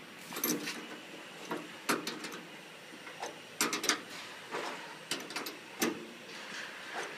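A steel wrench clicking and knocking against a bolt and the red sheet-metal guard of a combine harvester as the bolt is worked: a string of irregular sharp metallic clicks.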